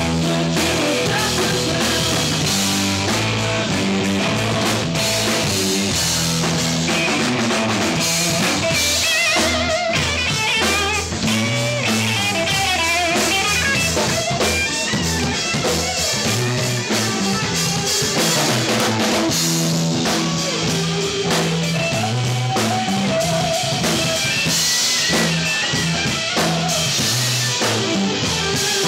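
A rock band playing live: electric guitar over a drum kit, loud and continuous.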